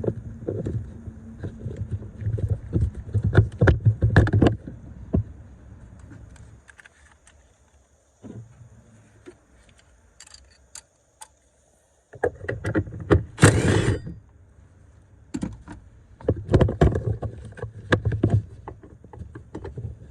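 Clanking and knocking of hand tools and metal parts in irregular bursts, with a quieter pause in the middle and a short scraping rasp about two thirds of the way in.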